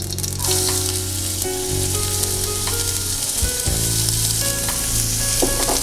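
Chopped onions hitting hot oil with spluttering mustard seeds in a kadai and frying with a steady sizzle, which starts just after the onions go in. A spatula stirs them through the oil.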